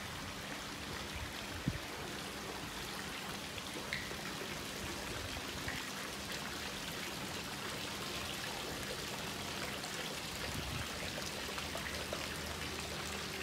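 Light rain falling: a steady, even hiss of water with a faint click about one and a half seconds in.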